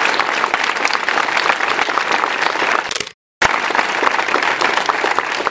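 Crowd applauding, many hands clapping at once. The sound cuts out completely for a moment a little over three seconds in, then the applause resumes.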